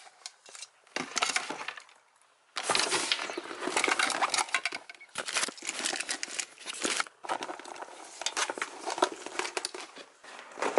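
Rustling and crinkling from things being handled and moved about, with many light clicks and metallic clinks. It goes quiet briefly about two seconds in, then carries on steadily.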